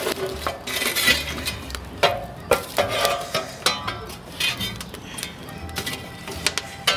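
A steel shovel knocking and scraping against burning logs and the steel walls of a smoker's firebox as the logs are shoved back, a string of irregular sharp clanks.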